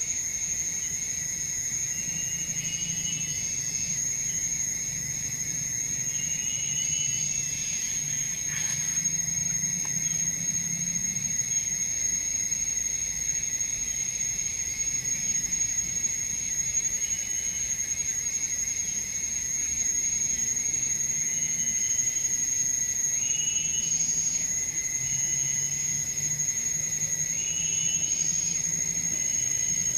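Steady high-pitched drone of insects in tropical forest, unbroken throughout, with short chirping calls repeating every few seconds.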